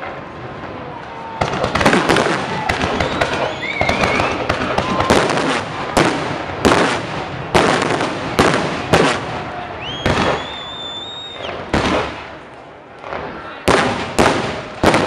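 Aerial fireworks shells bursting in quick succession during a finale, sharp bangs coming about once a second with a spell of crackling between them about two to five seconds in.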